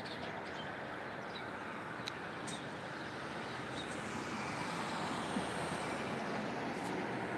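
Road traffic below: cars driving through a junction, their engine and tyre noise building in the second half as a car passes close by.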